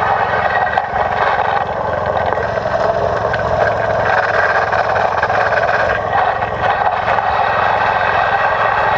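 13 hp engine of a two-wheel walking tractor running steadily while it drives a cylinder mower, picked up close by the tractor-mounted camera.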